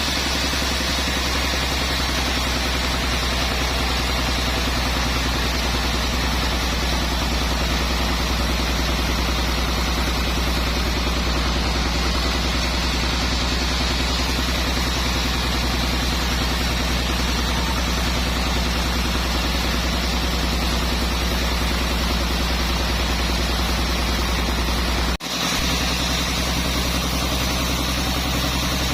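Sawmill machinery running steadily with a deep hum, briefly broken about 25 seconds in.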